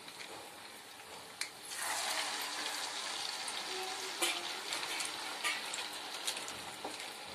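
Bottle-gourd and rice-flour fritters deep-frying in hot oil in a kadai: a steady sizzle that grows suddenly louder about two seconds in, with a couple of light clicks.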